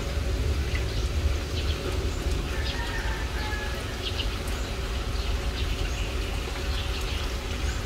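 Outdoor ambience: a steady low rumble with a faint steady hum, and birds chirping briefly now and then.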